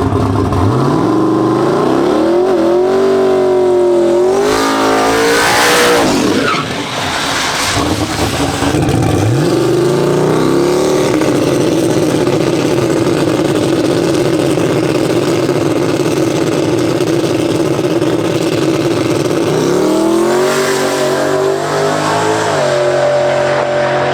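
Drag race car engine revving up and down several times, then held at a high, steady pitch for about ten seconds, then revving again near the end.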